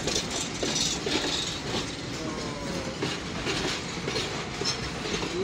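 Freight train of loaded open hopper wagons rolling past at close range: steady wheel and rail noise with a string of clicks and knocks from the wheels.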